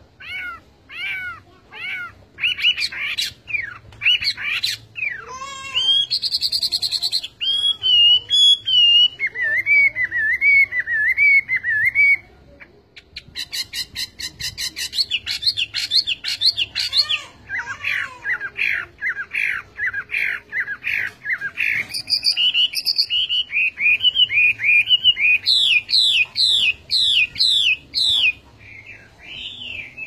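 Chinese hwamei singing its varied song: series of repeated whistled notes, very fast trills and wavering warbled phrases, with a short break near the middle.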